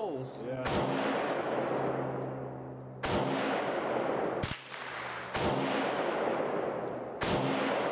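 Five rifle shots a second or two apart, each with a long echoing tail. One is from a single-shot .22LR Crickett rifle; the rest come from other shooters on the range, among them an FN FAL battle rifle.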